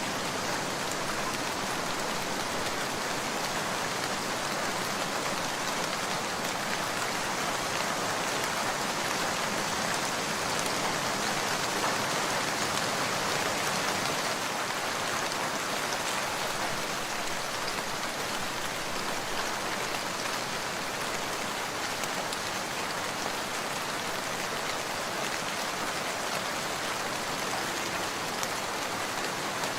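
Steady rain falling, an even hiss of many drops without let-up.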